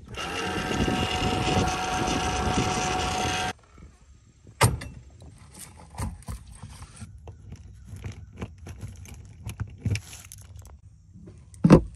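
A loud steady noise with several held tones for about three and a half seconds that cuts off suddenly. It is followed by scattered clicks and knocks of hands working a truck camper's sewer drain valves and a keyed compartment lock, with a sharp knock about a second before the end.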